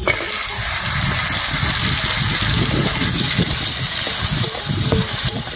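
Dal bori (lentil dumplings) dropped into hot mustard oil in a kadai, starting a loud, steady sizzle the moment they go in as they fry.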